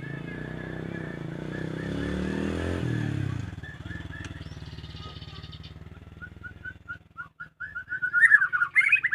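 White-rumped shama singing: a steady row of short repeated notes that quickens and grows louder in the second half into a loud, rapid warbling phrase near the end. A passing motor vehicle's engine swells under it and fades away by about three seconds in.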